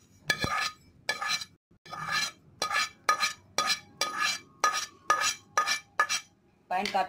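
A metal spoon scraping and tapping a pan in short, quick strokes, about two a second, each with a light metallic ring, as the last roasted nigella seeds are cleared out into a bowl.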